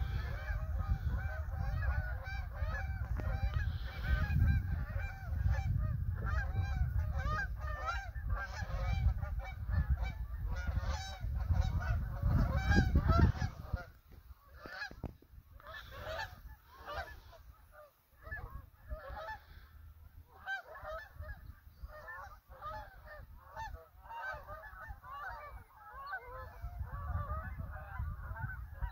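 A large flock of Canada geese, hundreds of birds, honking continuously, with many calls overlapping. A low rumble lies under the calls for the first half and stops about halfway through.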